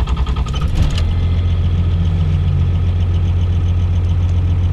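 A cold 5.9-litre Cummins 12-valve diesel in a 1997 Dodge Ram cranks and catches about a second in without the throttle pedal touched, then settles into a steady idle with diesel clatter. It now starts with no pedal, the sign that the throttle linkage adjustment has cured the hard starting.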